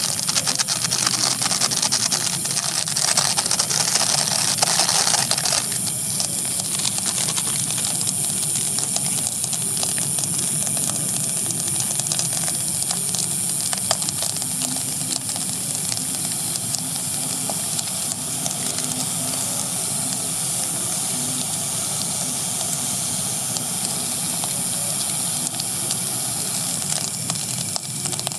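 Fried rice sizzling and crackling in a pan over a camping stove: a steady hiss dense with tiny ticks, a little fuller for the first five or six seconds.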